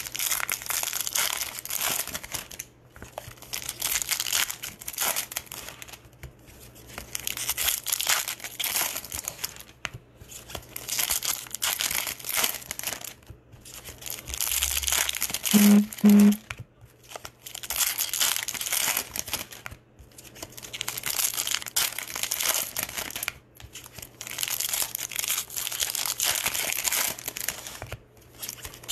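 Foil wrappers of Bowman trading card packs crinkling and tearing as they are opened by hand, in repeated bouts of a few seconds each with short pauses between. About halfway through come two short low beeps, the loudest sound.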